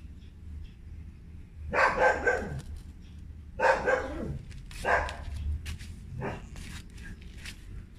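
A dog barking four times, the first two barks drawn out with a falling end, the last one short and faint.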